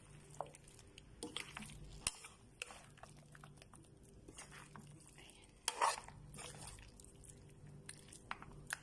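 Metal spoon scraping and clicking against a frying pan as a chunky chicken, potato and pea stew is stirred: light scattered clicks, with a louder scrape a little before six seconds.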